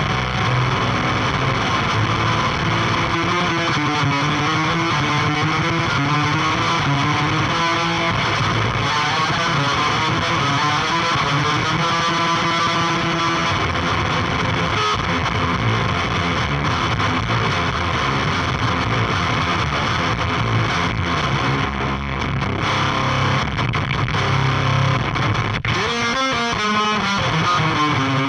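Electric guitar through the Otto Audio Blown Out Wall chainsaw-style distortion plugin and an external fuzz pedal, playing riffs with long held notes that bend in pitch. About three quarters of the way through a sharp click comes in and the playing changes to quicker sliding notes.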